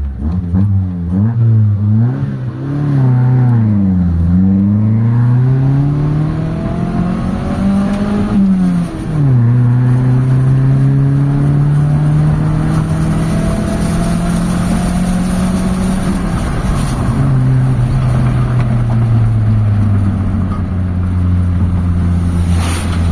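Carbureted 4G13 four-cylinder engine of a Mitsubishi Lancer accelerating hard on a test drive. Its pitch climbs and drops sharply at each gear change: several quick shifts in the first few seconds, a longer climb ending in a shift about nine seconds in, then steadier pulls. It is pulling stronger after carburetor and timing adjustment meant to cure low power.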